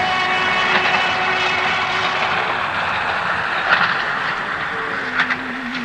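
Train passing: a steady rumble and rattle with several thin whining tones over it, slowly getting quieter. About a second before the end, a low wavering tone comes in.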